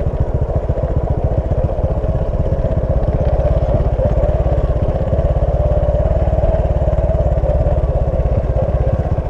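Motorcycle engine running steadily with an even, rapid firing pulse.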